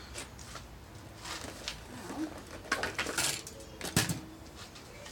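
Plastic cups and painting supplies being handled on a table: scattered light clinks and knocks, with one sharp knock about four seconds in.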